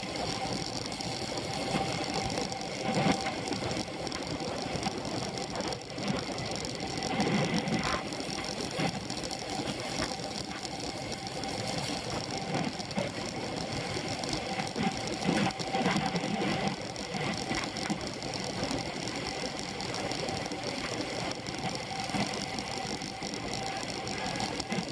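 Road bike's Dura-Ace drivetrain and tyres in motion, picked up through a handlebar-mounted camera: a steady mechanical whir with a held tone and a rushing noise, broken by occasional short knocks and rattles.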